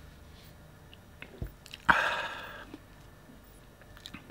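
Handling noise from a plastic model pistol: a few light clicks and a soft knock, then one sharp rasping sound about two seconds in that fades out within a second.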